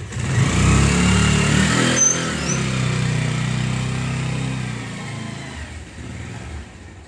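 Motorcycle engine pulling away and riding off, its note steady and then fading over the last couple of seconds.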